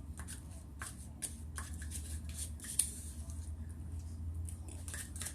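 Scattered small clicks and rustles of close handling, over a low steady hum.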